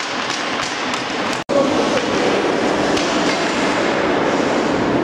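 Steady noisy din of an ice hockey game in play, with skates scraping the ice. It cuts out briefly about a second and a half in, then carries on.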